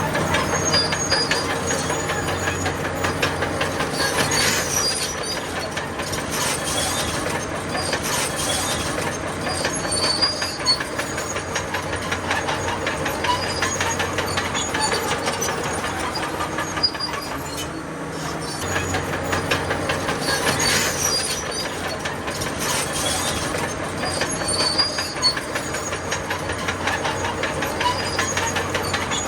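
Crawler bulldozer working: its diesel engine runs steadily under a fast, continuous clatter of steel tracks, with occasional high squeals from the track links.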